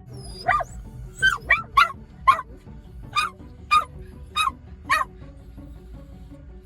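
Dog barking in short, sharp barks, about nine in quick succession, over background music.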